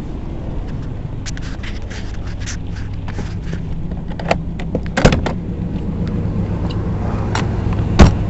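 Class A motorhome engine running with a steady low drone, with scattered rattles and clicks and two sharp knocks, about five and eight seconds in.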